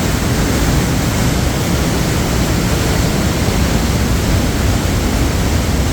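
Waterfall: the steady, loud rush of falling water, even throughout.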